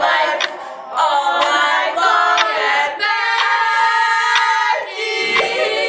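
A small group of voices singing a cappella, holding sustained notes, with a few sharp clicks among the singing.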